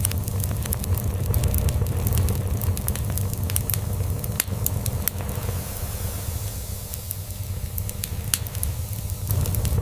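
Wood fire crackling, with irregular sharp pops and snaps over a steady low purr from a cat.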